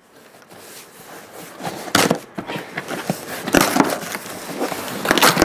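A parcel being handled and opened by hand: irregular rustling and scraping with a few sharper knocks, the loudest about two seconds in and near the end.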